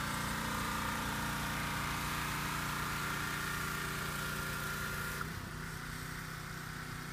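Gasoline pressure washer engine running steadily while the deck is being washed; about five seconds in the sound drops a little and a high whine stops.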